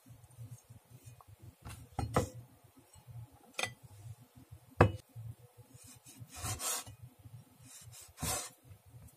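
Large kitchen knife knocking and scraping on a wooden end-grain cutting board: a few separate sharp knocks, the loudest about halfway through, then longer scrapes near the end while slicing raw beef.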